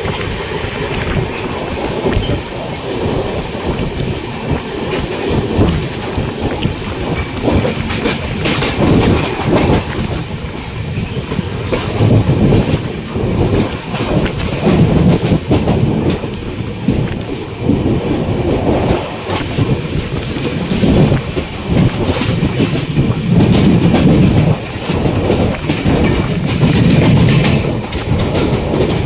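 Moving passenger train: a steady low rumble with the repeated clatter of wheels over rail joints, and a rush of air and noise that swells and fades.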